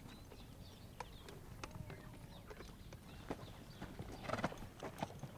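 A horse's hooves clopping irregularly on hard dry ground as it shifts about, with a brief noise from the horse about four seconds in.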